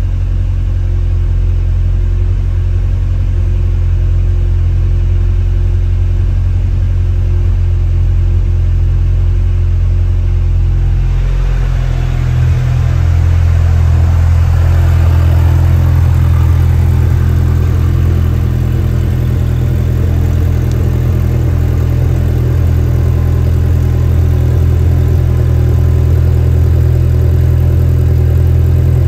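1995 Ferrari F355 GTS's 3.5-litre V8 idling steadily after a cold start. It is heard from inside the cabin at first; about twelve seconds in it turns louder and fuller, heard at the rear by the quad exhaust tips.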